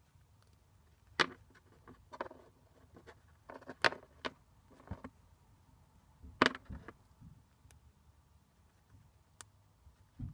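Chinchilla gnawing and crunching a peanut held in its front paws: a string of sharp, irregular crunches and clicks, the loudest a little over a second in, around four seconds in and around six and a half seconds in, with quieter nibbling between.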